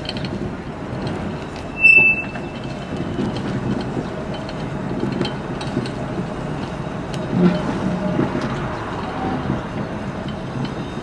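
Blackpool Centenary-class tram 646 rolling slowly past, its wheels rumbling on the rails and clicking over the track. A brief, loud, high-pitched tone comes about two seconds in.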